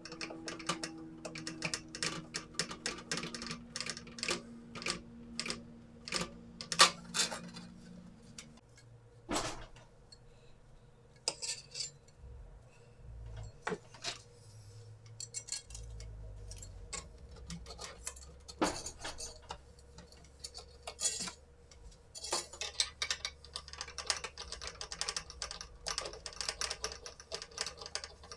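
Irregular clinks, knocks and rattles of the diesel heater's metal and plastic parts and pipes being handled and set down. A faint low hum sits under the second half.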